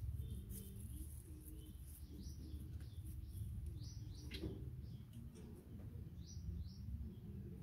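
Birds chirping: short, high, falling notes, often two in quick succession, repeated every second or two over a low steady background hum, with a few faint clicks.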